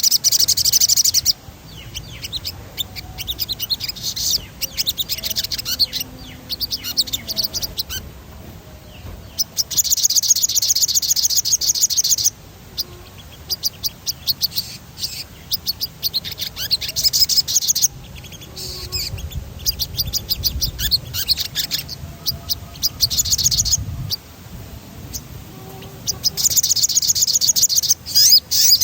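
Sogon bird singing energetically: runs of chirps broken by several loud, rapid rolling trills, each lasting one to two seconds, near the start, around the middle, and near the end.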